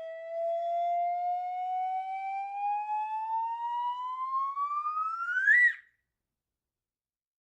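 Whistle sound effect gliding slowly upward in pitch, rising faster at the end and cutting off sharply about five and a half seconds in.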